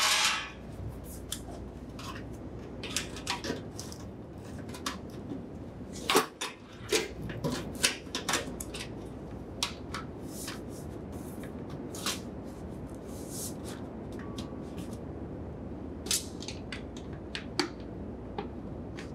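Scattered light clicks, taps and clatter of hands working at a refrigerator's rear panel, fitting the sheet-metal bottom panel and its screws, with busier bursts a few seconds in and again near the end.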